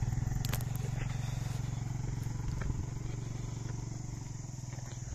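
Motorcycle engine running at low revs with an even throb, fading gradually as the bike moves away.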